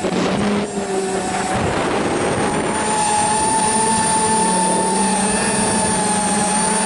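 A radio-controlled model aircraft's motor and propeller running at a steady pitch, heard from its onboard camera, with wind noise rushing over the microphone.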